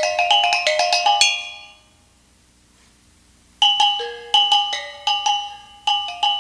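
Kulintang, a row of small horizontally laid gongs, struck with sticks in a fast run of ringing pitched notes. The notes stop about a second in and ring away into a pause of about two seconds, then the playing starts again in a steady rhythmic pattern.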